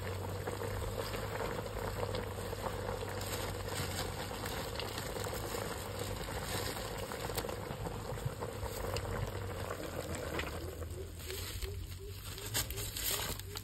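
Pot of snake eel and greens bubbling steadily over the heat. The bubbling grows quieter about ten seconds in, with a few light clicks near the end.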